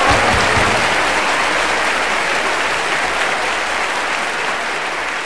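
Live audience applauding, the clapping slowly dying down.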